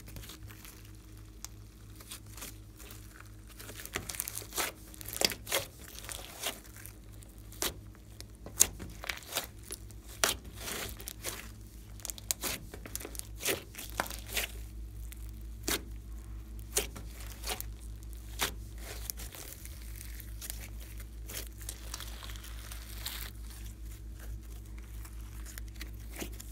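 Hands squeezing, stretching and folding a large lump of glossy slime, giving irregular sticky crackles and sharp pops as it pulls apart and air pockets burst. The pops are loudest and most frequent in the first half, then settle into lighter crackling.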